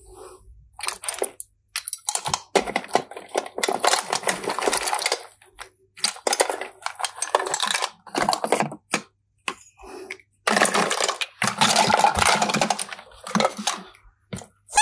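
Slime being squished and worked by hand, crackling and clicking in several spells a second or two long with short gaps between.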